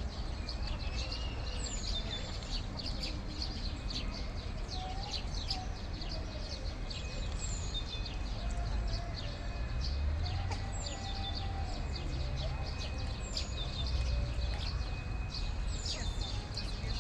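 Small birds chirping and peeping continuously, with a short high falling whistle repeated every few seconds, over a steady low rumble of city background.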